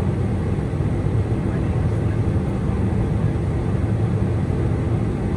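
Steady low rumble of a Boeing 747-400 heard from inside the cabin: engine and airflow noise, even and unchanging.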